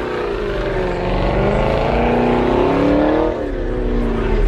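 Chevrolet Camaro engine revving hard while it spins its rear tyres in a burnout, the pitch climbing and falling as the throttle is worked, with a rough hiss under it.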